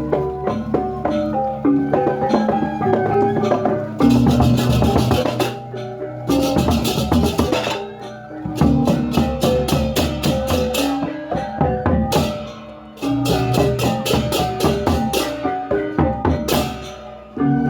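Balinese gamelan-style percussion music: struck metal mallet instruments ring out pitched notes over drums, with rapid runs of clashing cymbals coming and going several times.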